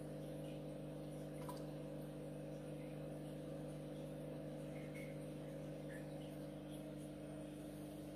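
Steady low electrical hum with several even overtones, from aquarium equipment running by the tank, with a few faint ticks.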